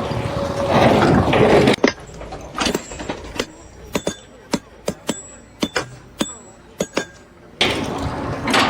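A loud, even rumble of noise that drops away about two seconds in, followed by a series of about a dozen sharp clinks and knocks, several with a short metallic ring; the rumble returns near the end.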